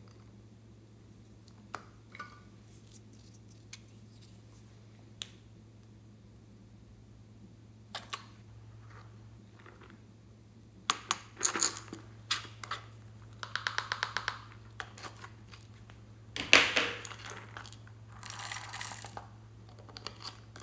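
Small plastic seashell-shaped containers handled and opened: scattered light plastic clicks, then a quick run of clicks and rattles, a louder clatter about two-thirds in, and a short rattling hiss near the end as one container is tipped to shake its contents out.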